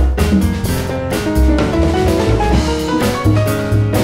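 Live jazz combo playing: congas struck by hand over drum kit, upright bass and piano.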